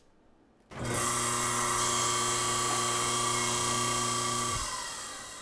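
A small electric motor appliance switches on abruptly, runs at a steady pitch with a whirring hiss for about four seconds, then switches off, its pitch sagging as it winds down.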